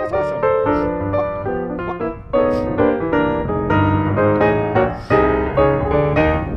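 Background piano music, chords changing every half second or so.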